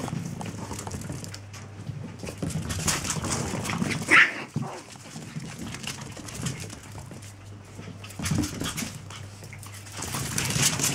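Chihuahua puppies playing and scuffling, with one short, high yelp about four seconds in.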